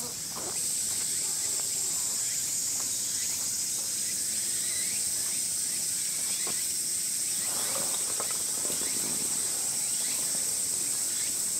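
High, steady drone of cicadas. Faint knocks and the rustle of a tarp being lifted on its pole come a little after halfway.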